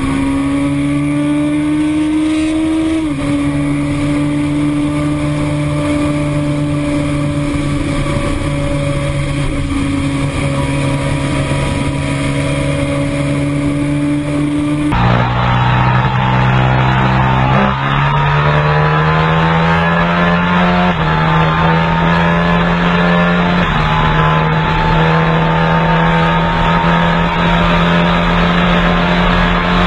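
Sport-bike engine at full throttle near top speed, with wind rush, the engine note climbing slowly through a high gear after an upshift about three seconds in. Then a second superbike takes over at higher revs, shifting up twice and pulling on past about 290 km/h.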